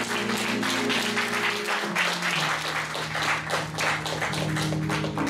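Congregation applauding, many hands clapping, over background music holding sustained chords that shift to a new chord about two seconds in.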